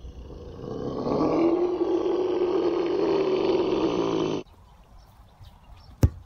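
A long, loud roar that swells about a second in and cuts off abruptly, then a single sharp thud of a football being kicked near the end.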